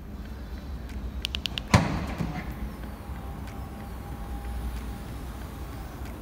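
Audi RS4 Avant's powered tailgate opening: a quick run of four clicks, then a sharp clunk as the latch releases about two seconds in, followed by a faint steady motor whine as the tailgate rises.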